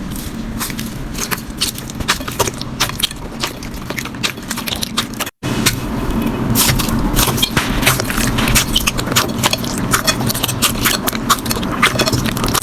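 Slime being squeezed and pressed by hand, giving a dense run of sticky crackling clicks and pops. The sound cuts out for an instant about five seconds in, then carries on.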